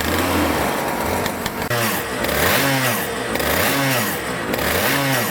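Go-kart engine running at idle, then from about two seconds in blipped repeatedly: the revs rise and fall about once a second, four times.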